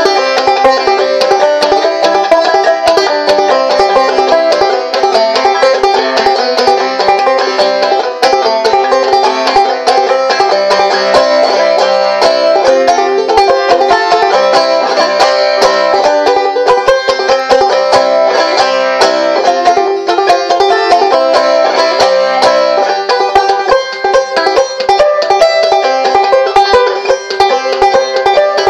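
Gold Tone White Lady Plus five-string banjo in C tuning, played clawhammer (frailing) style: a steady, driving run of plucked notes and down-struck brushes carrying a fiddle-type tune.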